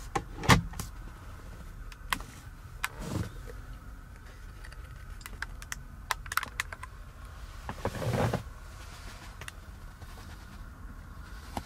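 Glove compartment lid of a 2010 Lexus RX350 clicking shut about half a second in, followed by scattered clicks and knocks of interior trim being handled and a heavier thump near the eight-second mark, over a steady low cabin hum.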